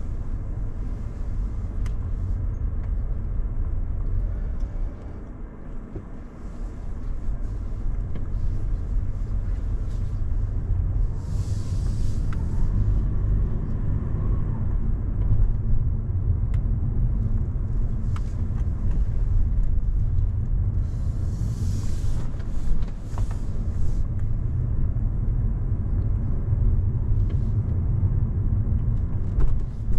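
Car driving: a steady low rumble of engine and road noise, dipping briefly early on and with two short hissing swells, near the middle and about two-thirds through.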